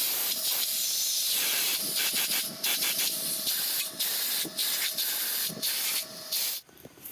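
Loud hissing jet in repeated surges, with a faint steady whistle under it, cutting off sharply near the end.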